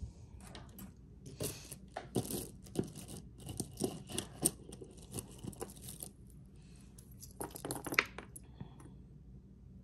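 Small costume jewelry pieces being handled and sorted: metal pieces clinking against each other amid short rustles, in two busy spells, the sharpest clink about eight seconds in.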